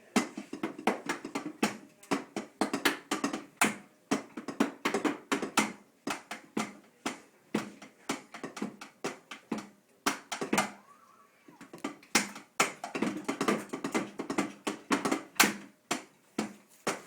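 Fast, irregular drumstick hits on an electronic drum kit, played without a steady beat, with a pause of about a second and a half just past the middle.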